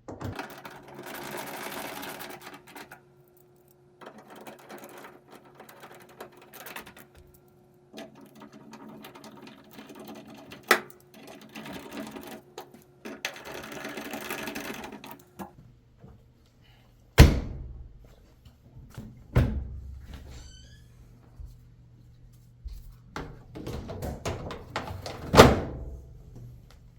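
Power drill/driver running in four bursts over about fifteen seconds, driving the four screws back into the dryer's front, then three sharp knocks.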